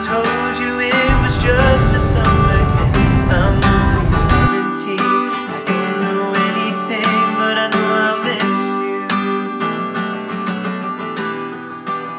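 Background music carried by a strummed acoustic guitar, gradually getting quieter near the end as the song fades out.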